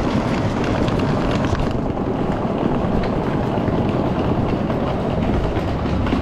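Passenger train running: a steady rumble, with a few short clicks in the first second and a half.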